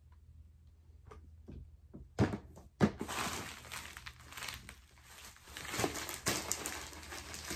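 Two sharp knocks about two seconds in, then a plastic bag crinkling and rustling steadily as it is handled and packed into a plastic storage bin.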